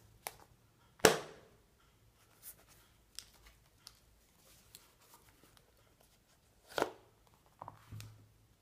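Handling noises of a leather wallet phone case and its detachable phone shell: a scattering of clicks and knocks, the loudest about a second in and another in the second half, with small ticks between.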